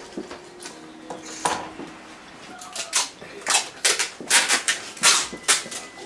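A painting tool dragging oil paint across canvas in about seven short scraping strokes, about two a second, starting about halfway in.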